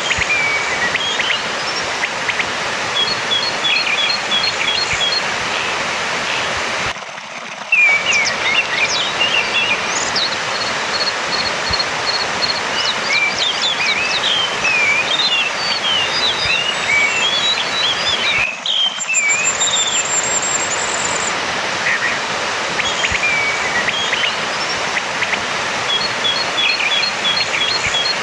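Orange-headed thrush singing: varied whistled phrases and quick runs of short repeated notes, over a steady rushing noise like a stream. The sound drops out briefly twice, about seven seconds in and again a little past the middle.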